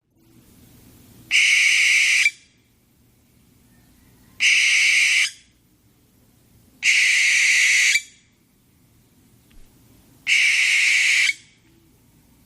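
Owl calling four times, each call a harsh, hissing screech about a second long, with pauses of two to three seconds between calls.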